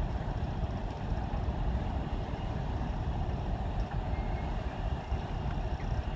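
Class 60 diesel locomotive's eight-cylinder Mirrlees engine running with a steady low rumble while hauling a train of steel-coil wagons, with wind buffeting the phone's microphone.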